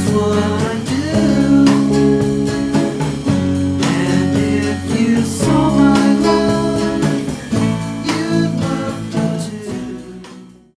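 Background music, a guitar-led track with a steady beat, fading out near the end.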